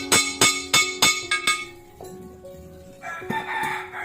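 Background music: a steady beat of struck, ringing notes, about three a second, that breaks off about two seconds in. A short, hoarse, noisy sound follows near the end.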